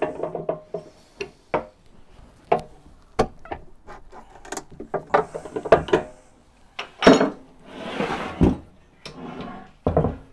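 Metal clanks and clicks of a pipe wrench working the large centre nut of a steel van swivel seat adapter, loosening the overtight pivot so the seat turns more easily. A longer scrape comes about eight seconds in.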